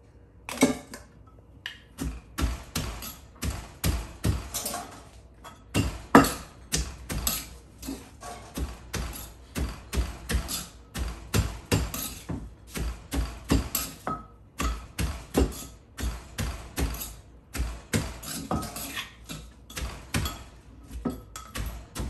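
Wooden pestle pounding in a large mortar while making papaya salad: steady, rhythmic knocks about three a second, with a short pause about two-thirds through.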